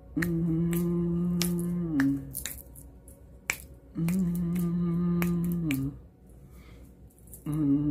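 Long, steady, low hummed notes, each held about two seconds and dipping slightly at the end: two full ones, with a third starting near the end. Between and over them come repeated sharp finger snaps.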